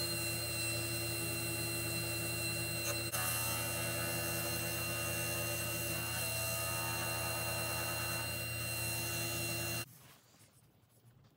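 Wood lathe running with a steady hum and whine while a cloth is held against the spinning wooden candlestick to polish on a finish. The sound cuts off suddenly near the end.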